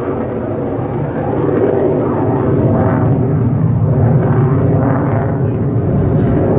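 Aircraft flying over, a steady engine rumble that grows a little louder over the first couple of seconds and then holds.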